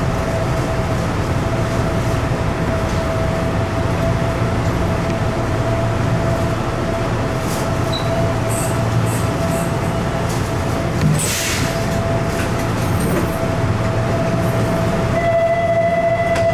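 Inside the cab of a Hanshin 'akadō' red-bodied electric train creeping into a terminus platform and stopping: a steady low hum with a constant whine. A short hiss of air comes about eleven seconds in.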